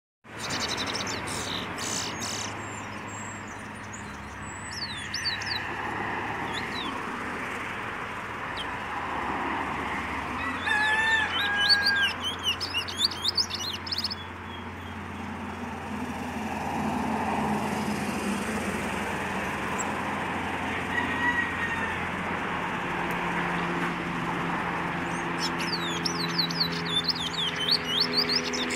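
Caged Trinidad bullfinch singing in short bursts of high chirps and whistles: a brief burst near the start, a longer one in the middle and another near the end, over steady road traffic noise.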